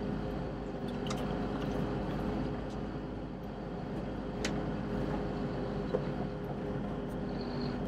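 Sherp ATV's diesel engine running steadily as it drives through woodland undergrowth, with a couple of faint clicks.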